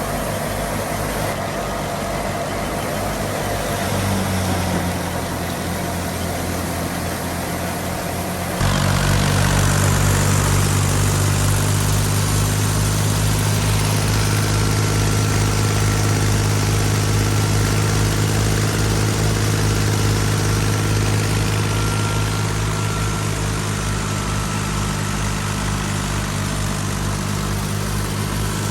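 Fiat 480 tractor's diesel engine running steadily with a low, even pulse. About nine seconds in, the sound abruptly becomes louder and heavier, then holds steady.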